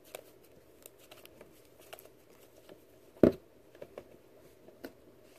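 Homemade slime being stretched, folded and pressed by hand, with small sticky clicks and crackles throughout. One loud thump a little past three seconds in.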